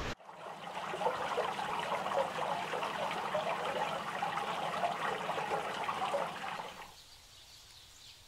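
Water pouring from a fountain spout and splashing onto ice-crusted stone, a steady trickling splash that cuts off about seven seconds in, leaving a faint outdoor background.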